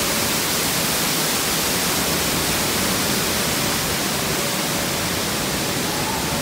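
Steady, even rush of a water-park waterfall heard from just behind the falling curtain of water.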